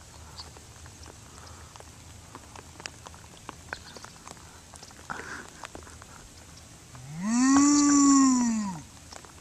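A single long moo about seven seconds in, its pitch rising and then falling away.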